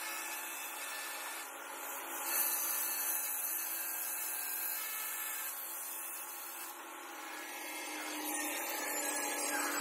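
Angle grinder with a diamond blade cutting a granite slab: a steady motor hum under a harsh grinding hiss, harshest from about two to seven seconds in, easing off near the end.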